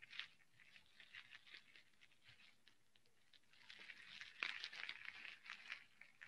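Near silence, with faint scratchy rustling and light clicks that grow busier over the second half.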